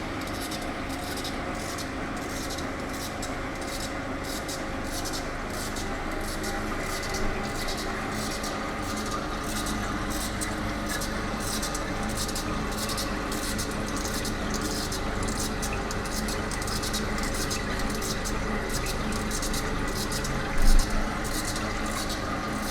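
Electrical discharge (EDM) machine running: a steady machine hum with a fast, even scratchy crackle pulsing about three times a second. A single short thump comes near the end.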